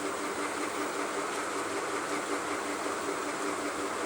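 Steady background machine noise: an even whirring hiss over a constant low hum, without change.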